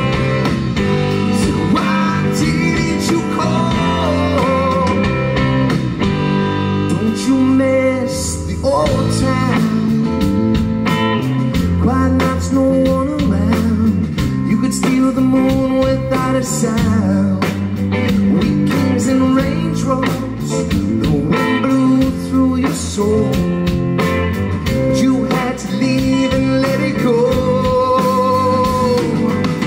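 Live blues-rock trio playing: electric guitar, electric bass and drum kit. A sustained lead line bends in pitch over a steady drum beat.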